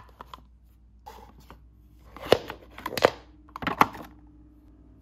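A cardboard toy box with a doll inside being batted and knocked about on a hard floor by a cat's paw: light taps and scrapes, then three louder knocks about a second apart.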